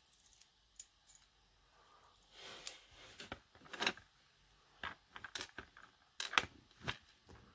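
Small metal parts of a key-in-knob lock cylinder clicking and clinking as the plug, pin tumblers and tools are handled during disassembly: scattered light ticks with a few short scrapes.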